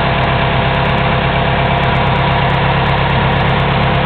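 An engine idling steadily, a loud, even run with a low pulse and no change in speed.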